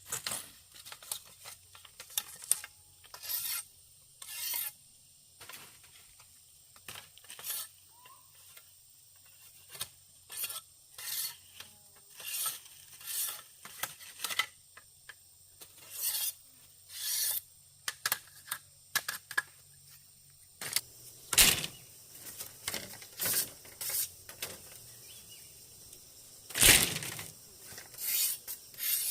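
Irregular short scraping and clinking strokes of objects being handled and worked, with two louder knocks in the last third.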